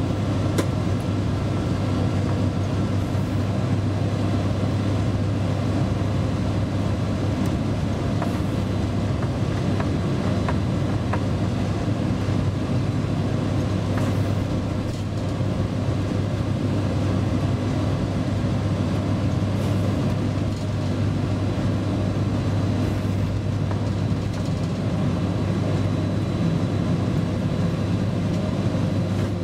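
Inside the driver's cab of a ČD class 340 dual-system electric locomotive under way: steady running noise of the locomotive and its wheels on the rails, with a constant deep hum and a few faint clicks.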